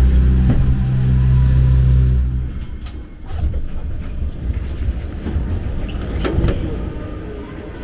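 Subway train standing at a station: its steady low hum cuts out about two and a half seconds in. A thud follows as the doors open, then platform noise with scattered sharp clicks, the loudest about six seconds in.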